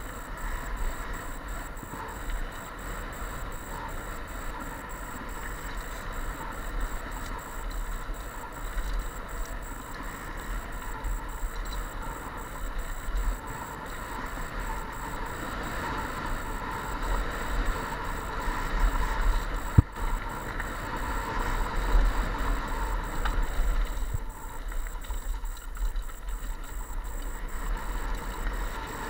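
Mountain bike rolling fast down a rocky, gravelly trail: steady tyre noise over stones and the bike rattling, with a low rumble on the helmet-mounted camera's microphone. One sharp knock about twenty seconds in.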